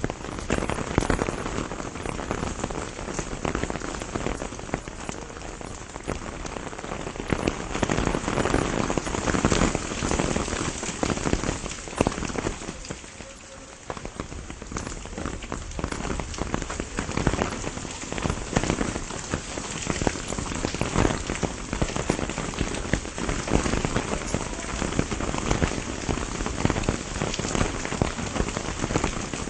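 Rain shower falling steadily on a pomegranate tree, a dense hiss scattered with many sharp ticks of nearby drops. It eases briefly about halfway through, then picks up again.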